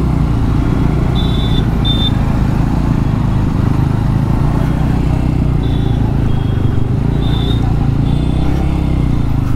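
Motorcycle engine running steadily at low speed in slow traffic, with several brief high-pitched beeps sounding over it.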